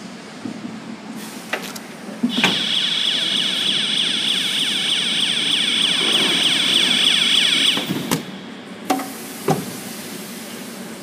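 High-frequency canvas welding machine giving out a steady, loud, high-pitched electronic tone for about five seconds, which starts and stops abruptly. A few sharp knocks come just before and after it.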